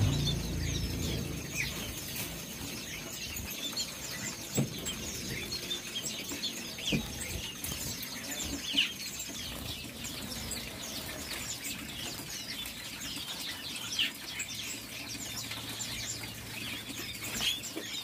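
Many small caged birds chirping together, short high calls overlapping without a break, with a couple of faint knocks.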